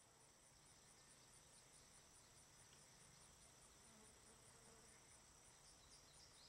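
Faint insects chirping in a cornfield: a steady high-pitched pulsing, about four pulses a second, over a constant thin whine, with a few short chirps joining near the end.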